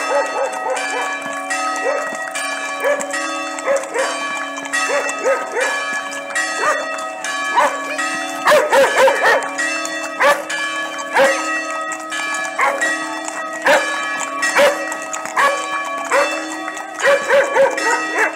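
Church bells ringing, struck over and over with long ringing tones, while a dog barks again and again, in a dense burst about halfway through.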